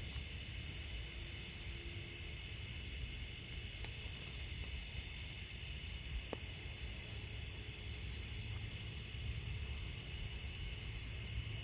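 Steady chorus of night insects such as crickets trilling in a continuous high band, over a low steady rumble, with one faint click about six seconds in.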